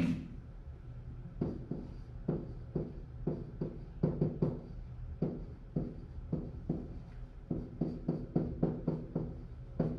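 Pen strokes on an interactive whiteboard during handwriting: a quick, irregular string of short taps and scrapes, over a steady low hum.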